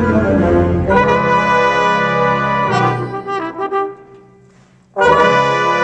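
Wind ensemble playing held, brass-heavy chords. A new chord enters about a second in, then the sound fades into a short pause, and a loud full chord enters near the end.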